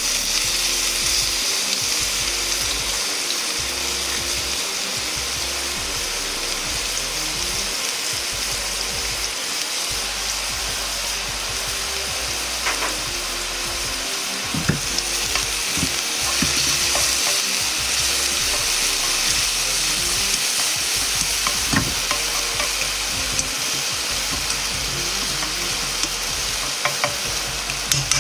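Minced red onion, garlic and ginger sizzling in hot chicken fat in a frying pan: a steady, loud frying hiss, with a few light clicks scattered through it.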